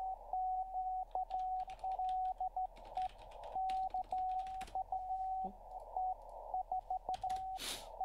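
Morse code (CW) from an amateur radio station received on a shortwave receiver: a single tone near 700 Hz keyed on and off in dots and dashes over band hiss. Computer keyboard typing clicks run alongside during the first few seconds, and there is a brief rush of noise near the end.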